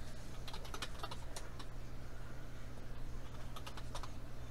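Light, irregular clicks and taps of football trading cards being flipped and slid through a stack by hand, in two short flurries, over a steady low hum.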